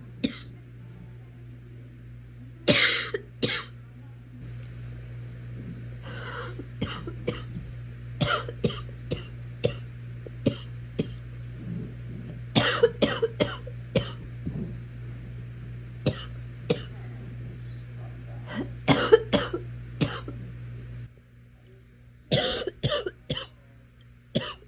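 A girl coughing in repeated fits, each a quick run of short coughs, coming every few seconds. A steady low hum sits underneath and cuts off a few seconds before the end.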